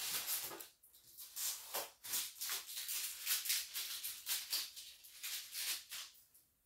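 Thin plastic protective film crinkling and rustling in many short, quick bursts, dying away near the end.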